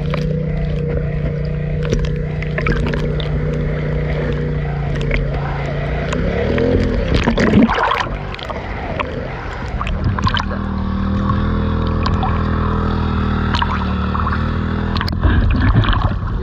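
Boat engine running steadily, its pitch swinging around seven to eight seconds in before settling into a steady run again, with scattered sharp knocks and splashes over it.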